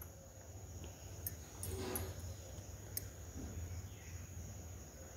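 Faint handling sounds of hands stuffing a dough ball with chana dal filling: two small clicks, about a second in and near three seconds in, and a soft brush of noise between them, over a steady low hum.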